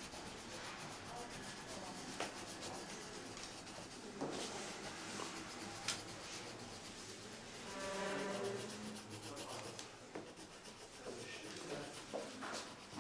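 Pencil scratching back and forth on paper as a boy colours in a drawing, a steady rubbing sound with a few faint clicks.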